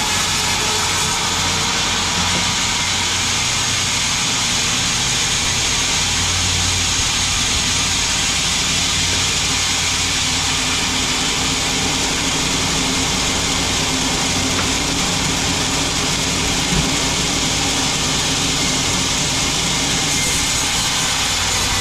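Sawmill machinery running steadily: a continuous hiss over a low engine hum.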